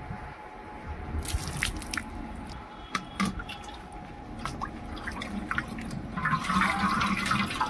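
A cotton cloth being pushed, squished and soaked by hand in water inside a stainless-steel pot, with small splashes and drips; the splashing gets thicker and louder over the last second or two.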